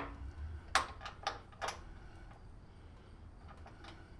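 Carriage bolt being fitted through the handle bracket of a Troy-Bilt StormTracker 2890 snowblower: three sharp metal clicks in the first two seconds, then a few fainter ticks, over a low steady hum.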